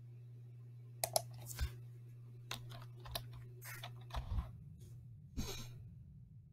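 Computer keyboard typing: a run of irregular key clicks starting about a second in, over a steady low hum.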